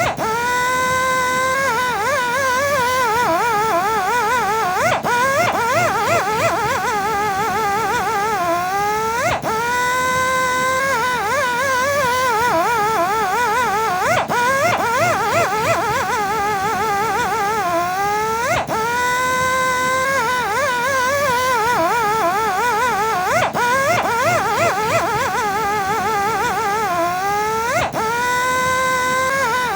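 Electric buffing and polishing machine running with a high motor whine whose pitch keeps wavering as it works. Every four to five seconds it briefly drops out and then spins back up with a quick rise in pitch.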